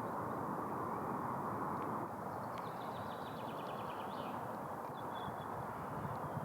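A small bird's rapid trill of short high notes, lasting nearly two seconds, starting a few seconds in, with one more short note a little later, over a steady rushing background noise.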